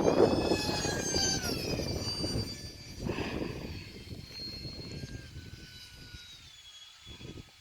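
Twin electric ducted fans of an E-flite UMX A-10 model jet whining in a fast pass: the whine drops in pitch about a second and a half in as the plane goes by, then fades into the distance. Wind buffets the microphone at the start.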